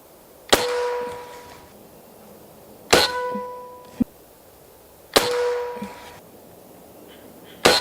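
Four shots from a Walther MaximaThor .25 PCP air rifle, about two and a half seconds apart, each followed at once by a metal target ringing with a clear tone that fades over about a second; the last shot comes near the end. A single sharp click falls between the second and third shots.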